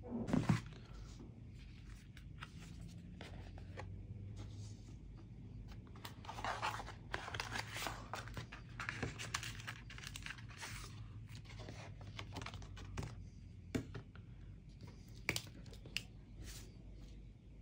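Product packaging being opened by hand: a thump right at the start, then irregular bursts of tearing and crinkling, with a few sharp clicks near the end.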